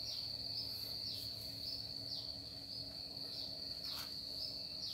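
An insect, cricket-like, trilling steadily at a high pitch, with a small dip in the trill every half second or so. A faint low hum runs underneath.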